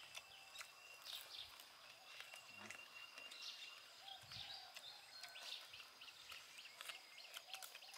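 Faint rural outdoor ambience: scattered short chirps and clicks over a thin, steady high-pitched hum, with faint distant voices now and then.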